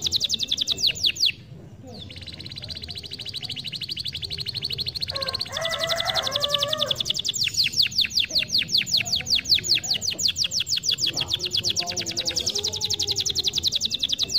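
Domestic canary singing: long, fast trills of rapidly repeated high notes, with a short break a little over a second in and a lower, warbling phrase around the middle before a louder trill resumes.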